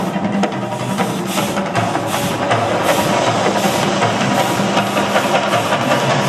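Loud drum-heavy show soundtrack of the Mirage volcano attraction over outdoor loudspeakers, with a deep rumble of the eruption effects underneath as the fireballs go up.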